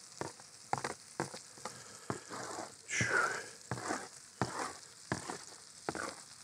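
Sausage, onions and peppers sizzling in a skillet, with a metal spatula scraping and tapping sliced peppers off a plastic lid into the pan. The longest and loudest scrape comes about three seconds in.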